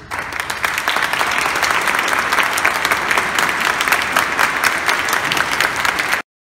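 Audience applauding: dense clapping that begins right away and cuts off abruptly near the end.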